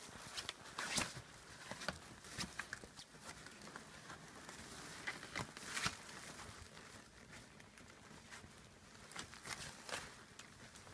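Irregular light taps and scuffles of rough collie puppies moving about, the clearest about a second in and again near six seconds.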